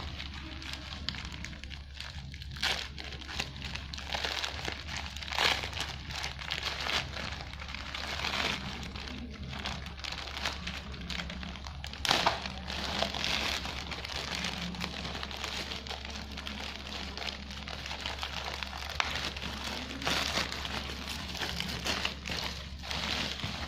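Pen packaging crinkling and rustling as it is handled and opened, with irregular sharp crackles, the loudest about halfway through, over a steady low hum.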